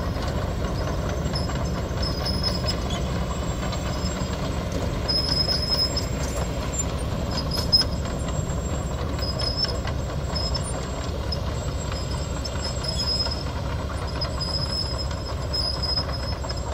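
Heavy diesel machinery engine running steadily, a low rumble, with a single sharp knock about eight seconds in.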